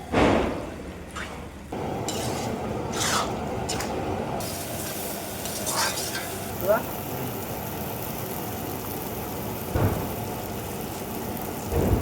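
Mutton chukka frying in a pan, with a steady sizzle that sets in about two seconds in and a spatula scraping and stirring the pan every few seconds.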